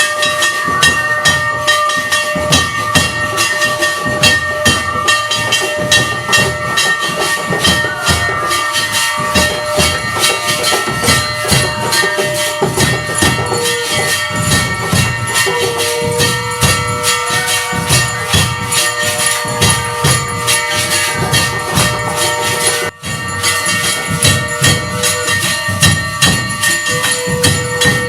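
Aarti music: bells and cymbals clanging rapidly and without pause over drum beats, with a few long held tones underneath. It cuts out for an instant about three-quarters of the way in.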